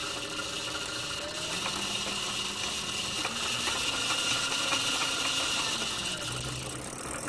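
A DIY electric scooter's 1000 W electric motor spins the rear wheel through a chain drive with the wheel off the ground. It makes a steady whir with a light chain-and-sprocket rattle and no grinding or knocking: the drive runs smoothly, its sprocket now aligned.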